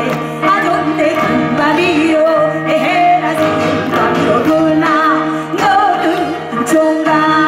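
Korean traditional gugak music: a singing voice with wide, wavering vibrato over sustained instrumental tones, with occasional percussive strokes.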